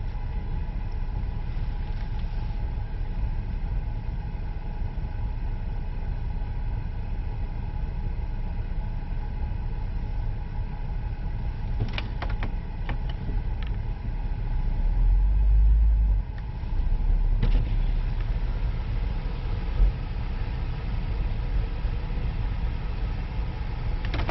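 A car's engine and road noise heard from inside the car: a steady low rumble that grows louder for about three seconds past the middle. There are a few light clicks around the middle and a single sharp thump a few seconds later.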